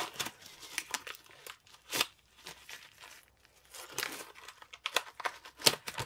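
Blue disposable gloves being peeled off the hands: irregular crinkling and sharp snaps of the thin rubber, easing off briefly midway and picking up again.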